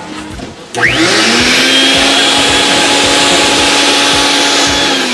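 A small motor whirring: it spins up quickly about a second in, runs at a steady pitch with a hiss for about four seconds, then winds down near the end.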